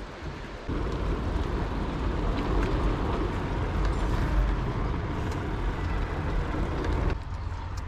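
Rumbling riding noise from a moving mountain bike, with wind and tyre noise on the camera. It starts abruptly about a second in and drops away just before the end.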